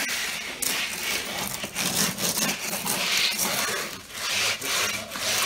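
Hand float scraping and rubbing over pebbles seeded into wet concrete, pressing the stone into the surface. Repeated gritty strokes come about once a second.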